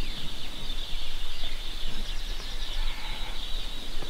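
Outdoor ambience: a dense, steady high-pitched chirping chorus with a low rumble underneath.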